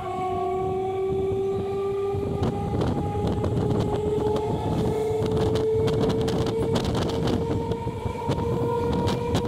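Electric multiple unit (EMU) suburban train picking up speed: the traction motors' whine rises slowly and steadily in pitch over the rumble of the running gear and a quick clatter of wheels on the rails.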